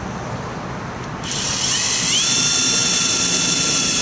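Power drill driving a self-tapping screw into the van's sheet-metal body. It starts about a second in, with a whine that rises and then holds steady.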